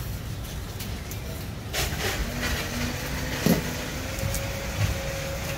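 Steady low rumble of street traffic, with a few sharp knocks of utensils against a clay mortar; the loudest knock comes about three and a half seconds in.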